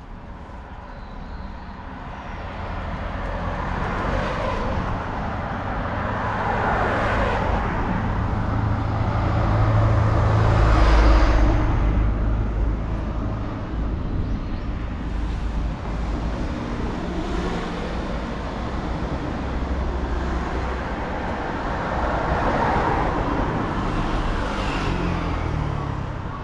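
Road traffic on a street: cars pass one after another, each swelling and fading, the loudest about ten seconds in with a deep rumble.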